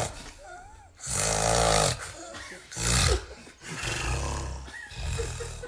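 Heavy snoring: rattling snores about a second long, repeating every one to two seconds, with faint whistling glides in the quieter breaths between them.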